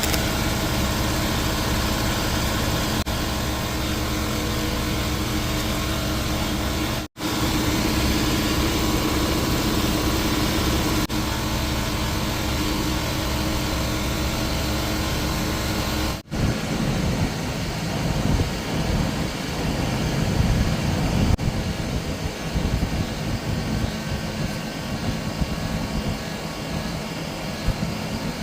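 Steady engine-like mechanical noise, cut twice by brief breaks. After the second break the low rumble flutters more unevenly.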